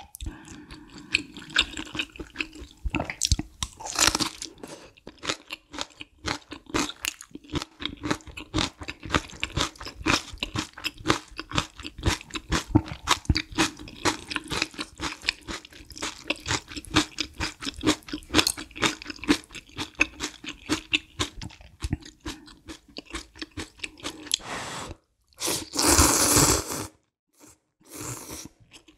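Close-miked chewing of food, a dense run of small wet clicks and crunches, then a loud slurp of noodles near the end.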